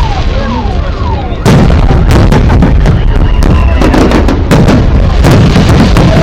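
Fireworks display going off in a dense run of loud bangs and bursts, with a sudden louder burst about a second and a half in, over music playing with the show.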